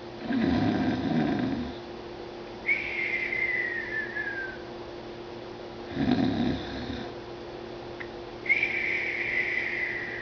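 A drowsy cat snoring: twice, a short rough snore is followed by a high whistling breath that slides down in pitch for about two seconds.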